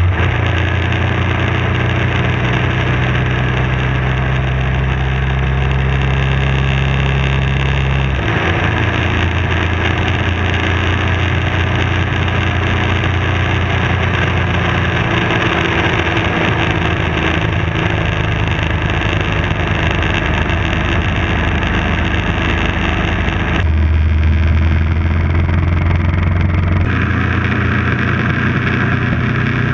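BMW F650 motorcycle engine running steadily while the bike cruises at road speed. The engine note changes abruptly about eight seconds in and again near the end.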